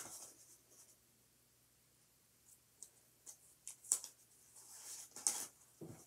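Faint handling sounds of cardboard toilet-paper rolls, string and tape: after a near-silent stretch, scattered small clicks and rustles, with a slightly longer rustle near the end.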